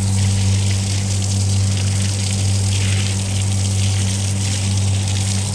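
Wash water gushing and splashing across a flat concrete roof, over a steady low electric motor hum.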